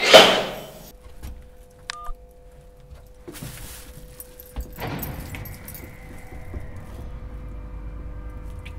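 Metal lift door clattering shut, loudest at the very start, followed by a few knocks. From about five seconds in, the lift runs with a steady hum.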